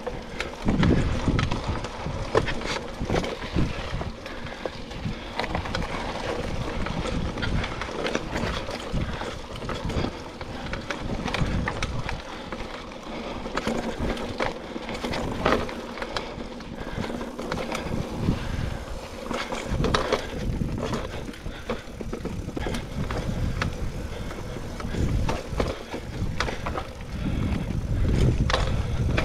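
Mountain bike ridden over dirt singletrack: tyres rolling on the trail, with the chain and frame rattling and clicking over bumps throughout.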